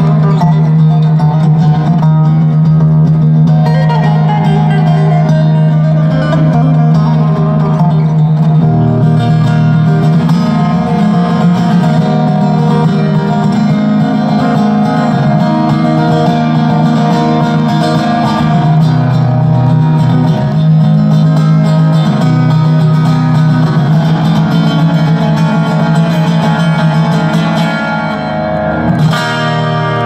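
Acoustic guitar played live over stage speakers: a plucked melody over a steady low held note.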